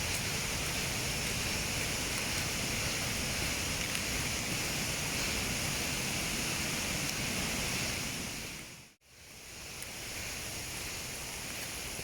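Steady rush of a waterfall's cascading water. It cuts out for a moment about nine seconds in and comes back slightly quieter.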